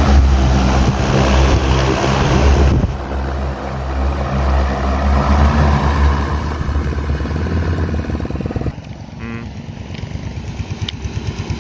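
DJI Agras T30 six-rotor agricultural drone running loud and steady on its electric rotors as it lifts off and flies out over a flooded rice paddy to broadcast-sow seed. The sound becomes much quieter about nine seconds in, when the drone is far out over the field.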